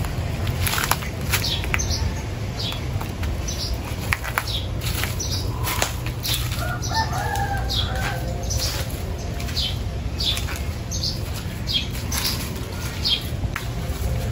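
Outdoor ambience: a small bird repeats short high chirps about every three-quarters of a second, and a rooster crows about seven seconds in. A steady low wind rumble and scattered light crackles run under them.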